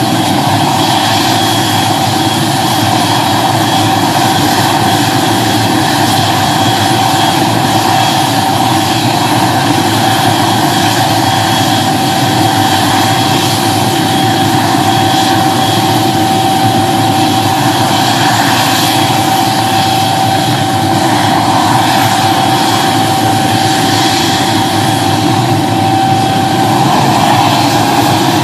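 Helicopter running on the ground at idle: a steady high turbine whine over the rotor noise. Near the end the whine starts to rise in pitch.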